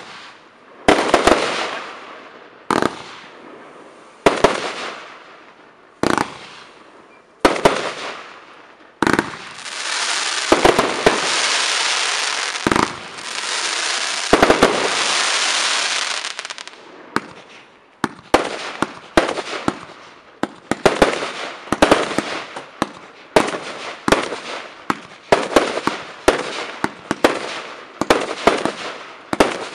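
Evolution Fireworks Acatenango 140-shot compound firework cake firing. First come single shots about every second and a half, each with a fading crackle, then a steady crackle for about eight seconds. Near the end, shots come in fast succession, about two a second.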